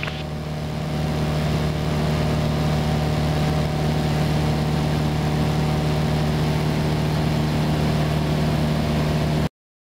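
Cessna 172's piston engine and propeller droning steadily in flight, a little louder over the first couple of seconds, then cutting off suddenly near the end.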